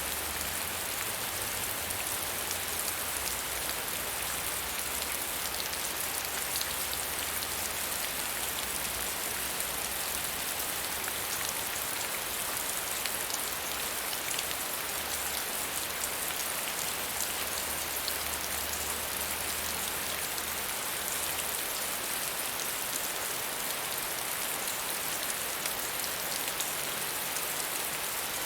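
Steady medium rainfall: an even hiss of rain with many small drops ticking on a surface.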